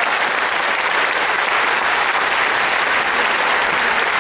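Steady applause from many people clapping at once, an even, continuous clatter of hands.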